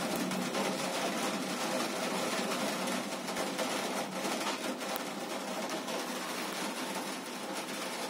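Steady rain pattering: a dense, even hiss of many small drop taps, easing slightly partway through.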